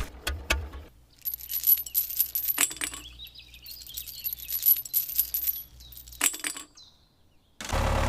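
Light clinks and tinkling of small hard objects in scattered bursts, fading to near silence; a steady motor-like running sound cuts back in near the end.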